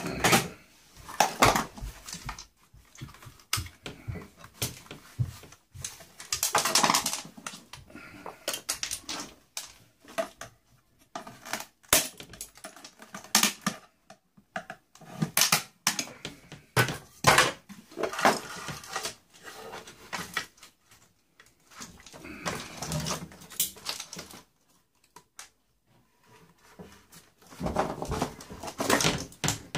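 A boombox being taken apart by hand: irregular clicks, knocks and rattles of its parts being handled and pried apart, with a few longer scraping stretches.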